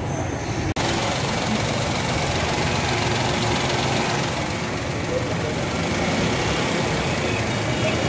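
Toyota Vitz engine idling with the air-conditioning running, and a steady hum and whoosh from the radiator fan. A brief break under a second in marks a cut in the recording.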